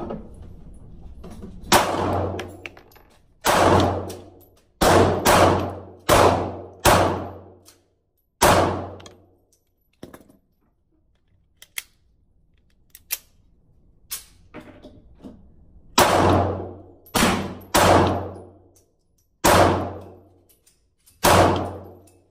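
Taurus Spectrum .380 ACP pocket pistol firing at an indoor range: a string of about seven sharp shots, each with a short echoing tail. A pause of about seven seconds follows with small clicks of the pistol being handled, then about six more shots.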